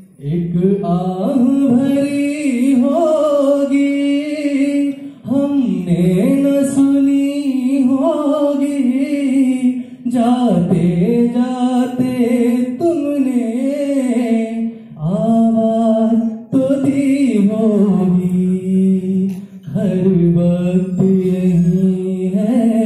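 A man singing solo into a handheld microphone, unaccompanied, in phrases of held notes with ornamented pitch slides and brief breaths between them.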